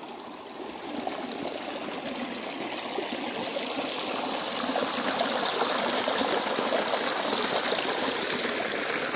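Shallow, rocky stream of water running and rippling over stones: a steady rush that grows gradually louder over the first few seconds.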